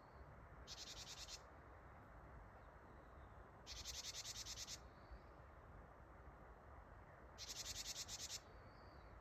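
A Japanese tit gives its buzzy 'jijiji' call three times, each a rapid string of harsh notes about a second long, over faint background hiss. This call is said to mean 'gather' in tit language.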